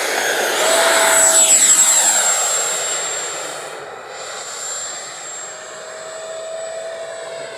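Electric ducted fan of an FMS F-16 model jet whining as the jet passes by, loudest about a second and a half in and then fading as it moves away.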